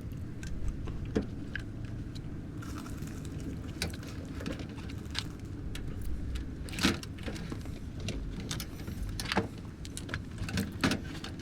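Scattered clicks and small knocks of hands working plastic and metal parts of a front-loading washer's drain pump assembly, pulling at its hose and wire connectors, over a steady low hum.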